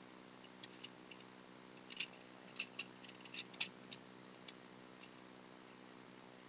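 Plastic Transformers Voyager Optimus Prime toy being transformed by hand: a run of small plastic clicks and snaps of its joints and panels, the sharpest about two seconds in and a quick cluster around three and a half seconds, over a faint steady hum.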